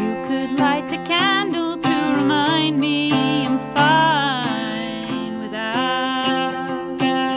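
A woman singing, her voice gliding with vibrato, over an archtop hollow-body electric guitar picked note by note.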